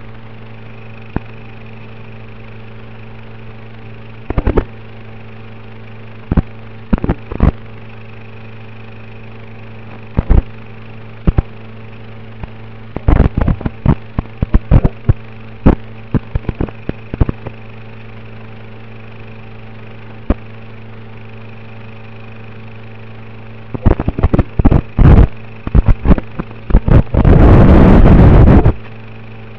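Audio channel of an analog FPV video receiver recorded by the goggles' DVR. A steady electrical hum is broken by sharp crackles of static, with a loud rush of static about 27 s in. The static is the sign of the video signal breaking up.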